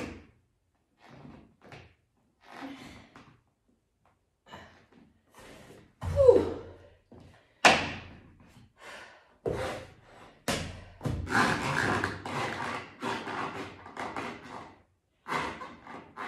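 Tall rubber boots being worked off with a wooden boot jack on a parquet floor: a series of knocks, thuds and scuffs, and one boot is pulled off and dropped to the floor.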